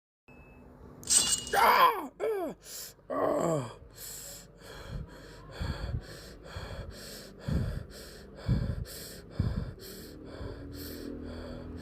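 A few cries that fall steeply in pitch, then a steady run of short clicks, about two or three a second, with a few low thuds among them.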